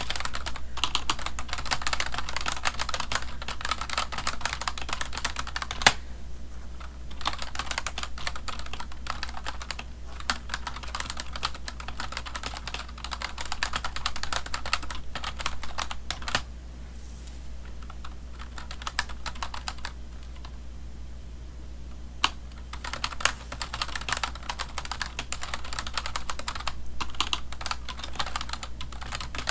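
Typing on a computer keyboard: rapid, dense key clicks, with a brief pause about six seconds in and a longer, quieter lull around the middle before typing picks up again.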